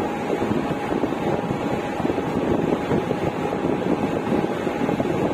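Mumbai suburban electric local train running along the track: a steady rumble of wheels and rushing air, with a thin steady whine through it and wind on the microphone.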